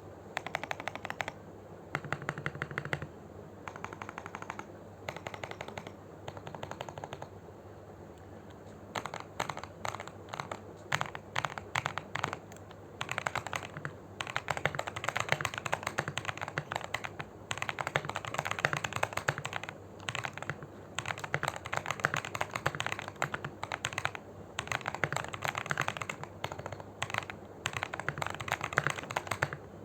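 Typing on a Tofu60 mechanical keyboard with Boba U4T tactile switches, filmed and lubed with Krytox 205g0, under clone GMK Red Samurai keycaps. Short bursts of keystrokes for the first several seconds, then longer runs of fast typing broken by brief pauses.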